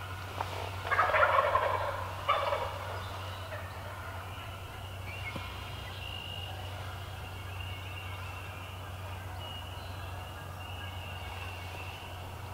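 Wild turkey gobbling: one loud gobble about a second in, with a shorter burst just after it. A steady low hum runs underneath.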